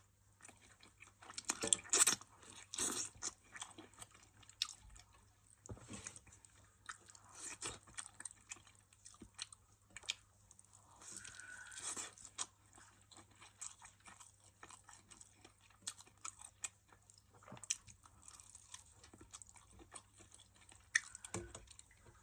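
Close-miked chewing and crunching of food with many small irregular crackles, as a person eats in mukbang style.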